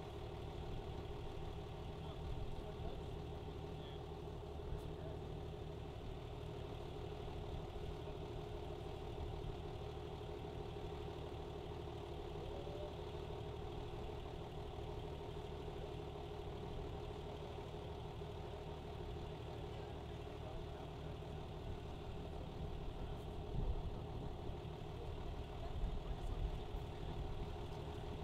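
An engine idling steadily, with a few low thumps near the end.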